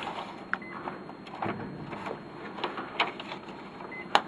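A sheet being handled and slid across the plastic manual-feed tray of an office printer: soft rustling and scattered light clicks, with one sharp click shortly before the end.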